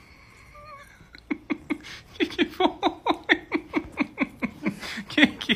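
A woman laughing in a long run of short, quick bursts, about four or five a second, beginning about a second in.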